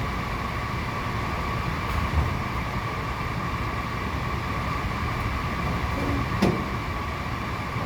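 Convection fan of a 6000CLX-IFT-S running steadily with a whine over a low rumble and flutter, with a sharp tick about six and a half seconds in. The uneven low rattle is the heat shield section in the rear convection chamber vibrating in the fan's airflow, which the owner suspects is out of position.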